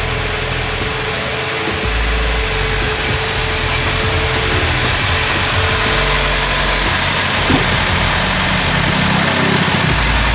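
Honda Mobilio's four-cylinder i-VTEC petrol engine idling steadily, heard close to the open engine bay; the engine sits on a sagged engine mount that makes the body vibrate.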